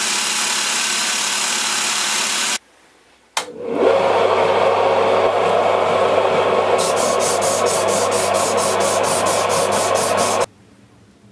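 Belt grinder grinding a steel knife blade, cut off about two and a half seconds in. After a short pause a loud steady rasping starts with a brief rising whine, and from about halfway through quick rubbing strokes of about five a second come in as the blade is hand-sanded with an abrasive stick; it all stops shortly before the end.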